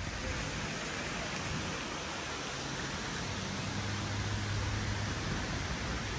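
Wind blowing over a handheld camera microphone: a steady, even hiss with a low rumble that grows stronger in the second half.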